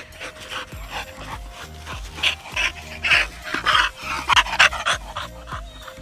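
Japanese Akita panting hard and fast as it runs up close, loudest in the middle few seconds, over steady background music.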